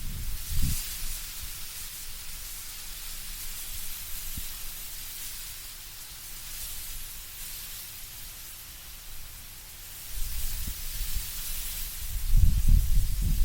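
Wind blowing through autumn trees with leaves rustling, a steady hiss that swells in gusts about half a second in and again from about ten seconds in, when a low rumble comes with it.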